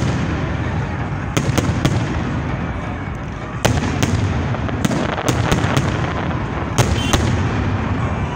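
Aerial firework shells bursting during a fireworks display: about a dozen sharp bangs, some in quick pairs, over a continuous low rumble.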